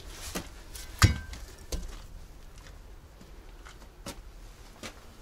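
Steel axle shaft of a KAMAZ truck set down with a sharp metallic clank that rings briefly about a second in, followed by a second knock and a few lighter metal clinks.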